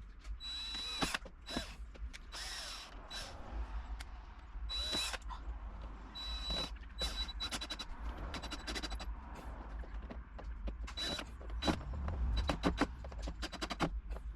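Irregular knocks, clicks and scraping from hand work on a door's lock hardware, with a quick cluster of sharp clicks near the end.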